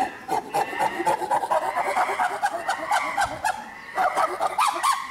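Chimpanzee calling: a fast run of short, pulsing calls that breaks off briefly about three and a half seconds in, then starts again.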